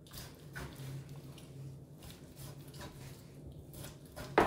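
A chef's knife scoring a raw pork shoulder in a roasting tray, with faint soft wet cuts and the meat shifting under the hand over a low steady hum, then one sharp knock near the end.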